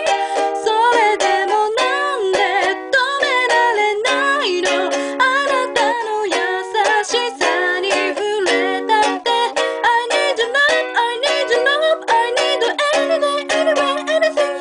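Ukulele strummed in a steady rhythm, accompanying a solo singing voice.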